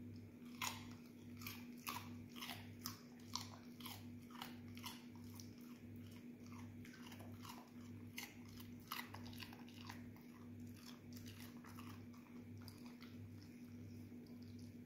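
An Australian shepherd crunching and chewing a piece of raw carrot: a steady run of short crisp crunches, about two to three a second.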